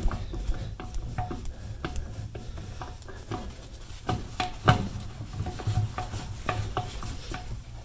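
Irregular light metallic clicks and taps of a hand tool turning out the small 5/16-head screws that hold a car's fuel filler neck, with sharper knocks about four to five seconds in. Gloved hands rub close to the microphone.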